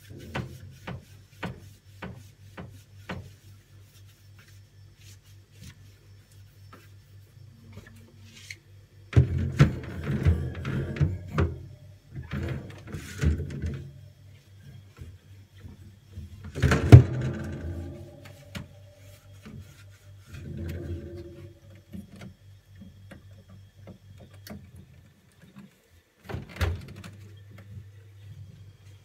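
A sponge wipes and scrubs the inside of a refrigerator, with scattered clicks and knocks against the plastic lining and wire shelves. One louder knock comes about halfway through. A steady low hum runs underneath.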